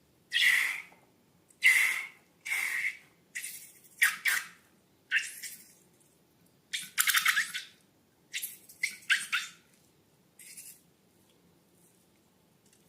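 Rubber balloons squeaking in short, separate bursts, about a dozen over twelve seconds, with quiet gaps between.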